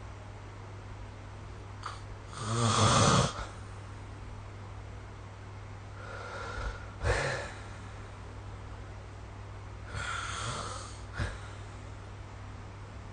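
A sleeping person snoring: one loud snore about two and a half seconds in, then two softer snoring breaths around seven and eleven seconds, over a steady low hum.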